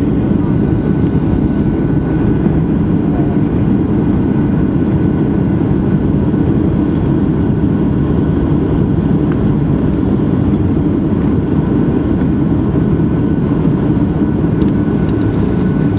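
Steady cabin noise of a Boeing 737-500 rolling along the ground after landing: the CFM56-3 jet engines and the rumble of the roll, heard from a window seat by the wing. A faint, steady high whine sits above the deep rumble.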